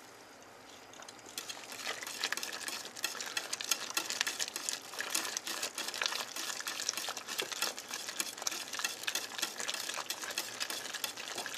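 Soft, busy ticking and crackling at a pot of hot, creamy potato soup as roux is crumbled in and stirred with a wire whisk to thicken it. It starts about a second and a half in.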